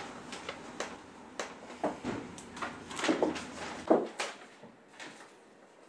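A sheet of paper being handled, rustling and crinkling in irregular light clicks, with a few louder crinkles a couple of seconds in.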